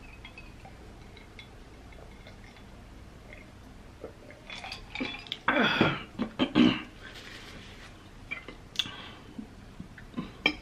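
Table sounds around a drink and a plate: after a sip, a drinking glass is set down with a clink and short throat sounds follow about halfway through. A fork clicks on the plate near the end.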